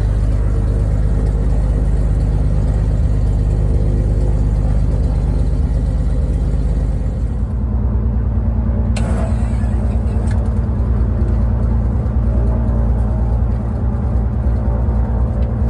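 Ted Smith Aerostar 601B's Avco Lycoming six-cylinder engine running steadily with its propeller turning, heard from inside the cabin. The engine note shifts slightly about halfway through, and a single sharp click sounds just after.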